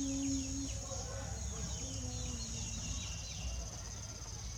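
Birds chirping in short, repeated falling calls over a steady high-pitched insect drone.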